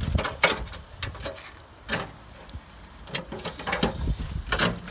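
Irregular sharp knocks and clanks a second or so apart: car body sheet metal being bent and torn by hand without a cutting tool.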